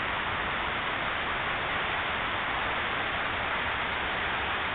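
Rows of ornamental fountain jets spraying and falling into a pool: a steady hiss of splashing water.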